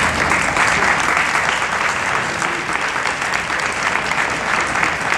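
Audience applauding steadily: dense, continuous clapping from a large crowd.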